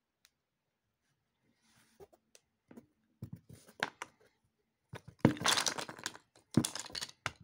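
Cardboard jigsaw puzzle being broken apart and its pieces tumbling onto a mat: scattered clicks and rustles, then two louder spells of clattering, crackling pieces in the second half.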